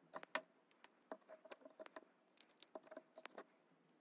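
Faint, quick, irregular clicks and taps of small neodymium cube magnets and a steel screwdriver tip against a 3D-printed plastic bowl array as the magnets are pushed into their cells.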